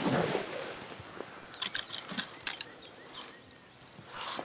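Dry fallen leaves rustling and crunching as a person shifts and crawls on the forest floor, with a few short sharp crackles in the middle and more rustling near the end.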